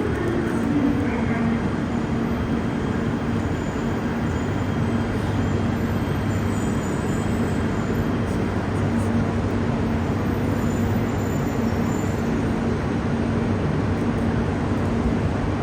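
Steady hum and whir of a Shinkansen trainset standing at the platform, its auxiliary equipment running with a constant low drone.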